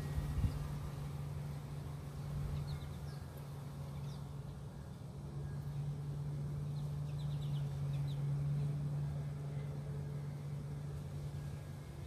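A steady low mechanical hum, with scattered short, high chirps from small birds at a seed feeder.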